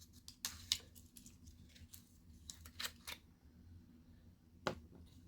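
Faint, scattered clicks and snaps of a plastic packaging tray being handled and pulled from a cardboard toy box.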